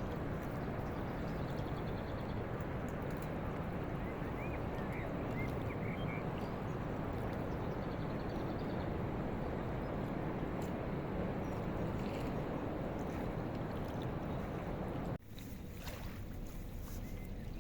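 Steady rushing noise of a boat passing on the river, with its engine and the water it pushes. The sound cuts off abruptly about fifteen seconds in, leaving a quieter background.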